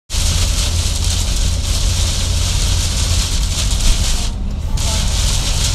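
Steady noise inside a car driving through a thunderstorm: a low road rumble under a loud hiss, with the hiss cutting out briefly about four and a half seconds in.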